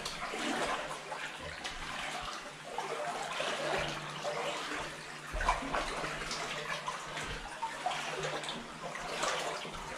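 Water sloshing and splashing irregularly as people wade through the shallow water flooding a mine tunnel.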